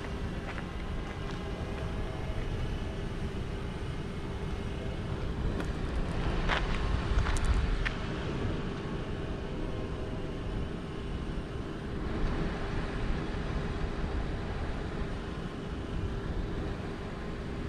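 Parked car idling, heard inside the cabin: a steady low rumble with a constant hum. A few light clicks and a brief swell come about six to eight seconds in.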